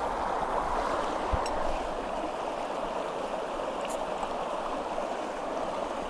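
Shallow, rocky stream running steadily over stones, with a couple of faint clicks about a second and a half and four seconds in.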